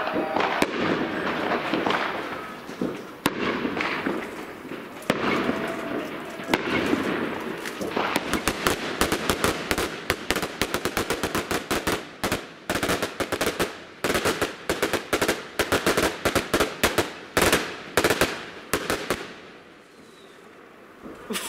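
Fireworks going off: a few separate bangs over a rumbling haze at first, then from about eight seconds in a dense run of sharp crackling pops from crackle-effect shells for some ten seconds, dying away near the end.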